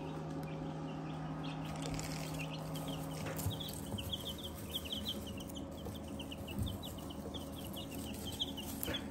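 A brood of young black chicks peeping: many short, high, slightly falling peeps in quick succession, over a low steady hum.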